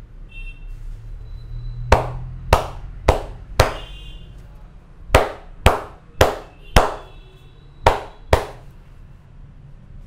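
Massage hand slaps on a bare back: ten sharp smacks in quick runs, about half a second apart, four, then four, then two.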